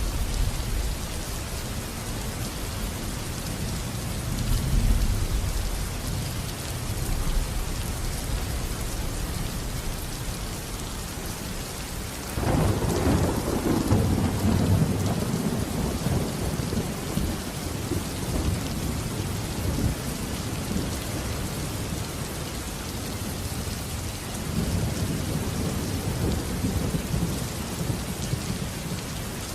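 Steady heavy rain with rolling thunder. A sharp thunderclap breaks about twelve seconds in and rumbles away over several seconds, and further low rumbles come near the start and near the end.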